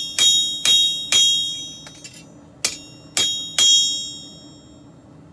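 Six hammer blows on steel at an anvil, each with a bright metallic ring that dies away over about half a second. They come in two quick runs of three, the second run starting about two and a half seconds in.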